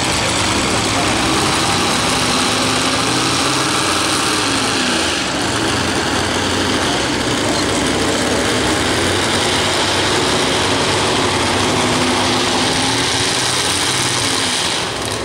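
Engine of a C-cab truck-pulling truck running loudly at idle, its pitch lifting and settling gently a couple of times as it is eased back toward the sled.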